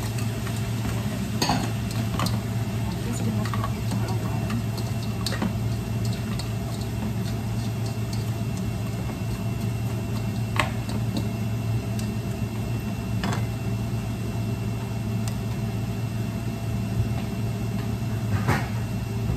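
Steady hum of a kitchen range hood fan, with occasional sharp clicks and scrapes of a metal cooking utensil against a wok as stir-fried noodles are tossed.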